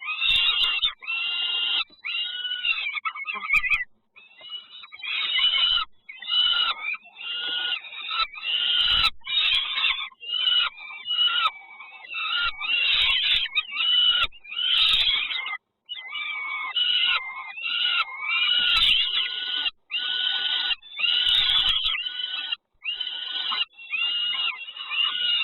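Nestling birds calling harshly in the nest, short arching calls repeated about twice a second without a break, typical of chicks begging for food. A few soft thumps sound among the calls.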